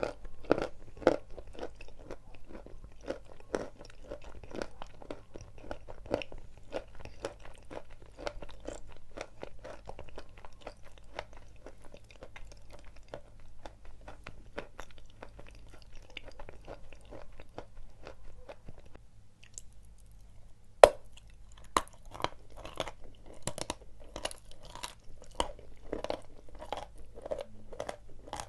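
Dry chalk being bitten and chewed close to the microphone: a dense, irregular crunching of small cracks. After a short lull about two-thirds of the way through, there is one sharp, loud crack, and then the crunching starts up again.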